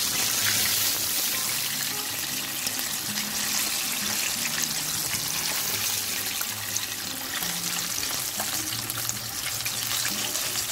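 Breaded chicken wings deep-frying in hot oil: a steady sizzle of bubbling oil.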